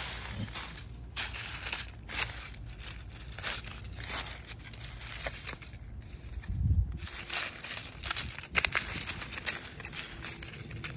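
Dry leaves and soil crackling and rustling in irregular bursts as a metal hand trowel works the ground, with a dull low thump a little past halfway.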